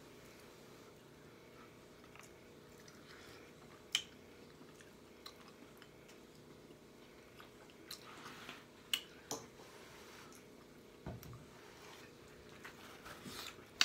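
A person eating: chewing with scattered wet lip smacks and mouth clicks, a second or a few apart, and a soft low thump about eleven seconds in.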